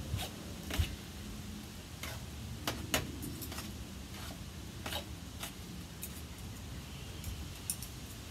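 Two metal forks shredding pulled pork in a stainless steel pan, the tines giving irregular light clicks and scrapes against the metal.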